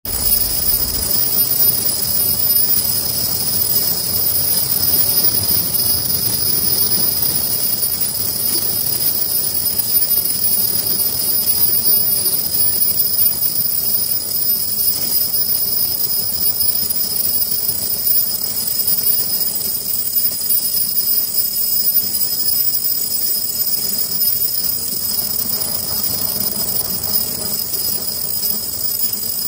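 Automatic sleeve-making machine running: a steady mechanical clatter and rattle from its rollers and feed, with a constant high-pitched whine over it.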